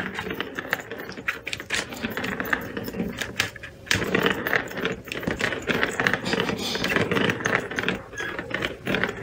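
Small plastic balls rolling and rattling around the enclosed track of a cat's circuit toy, with a steady run of clicks as they knock against the plastic.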